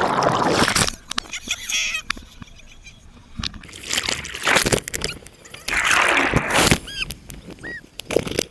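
Seawater splashing and sloshing right against an action camera at the waterline, in three loud bursts: at the start, about four seconds in, and about six seconds in. A few short high squeaks come near the end.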